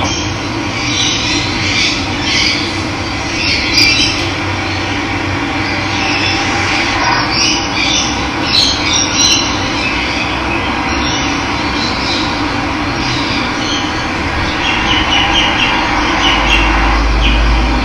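Running water, a steady rushing flow, with wild birds chirping and calling over it at scattered moments. A low rumble comes in near the end.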